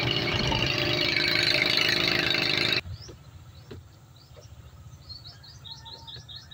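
Outrigger fishing boat's engine running loudly under way, with wind and water noise, stopping abruptly about three seconds in. After that it is quiet, with small birds chirping over and over.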